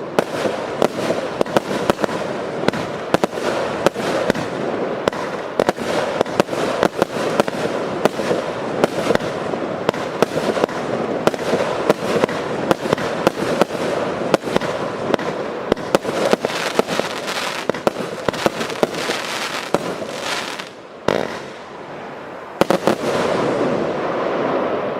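100-shot, 20 mm cake firework (TKB528) firing in rapid succession: a dense, continuous stream of sharp shots and bursts, several a second. The shots thin out for about a second and a half some twenty seconds in, then the firing picks up again.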